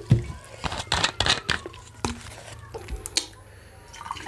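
A plastic Pepsi bottle is handled and its cap twisted off, with crackling of the thin plastic and sharp clicks, and a low thump right at the start. Near the end, cola begins pouring into a glass mug.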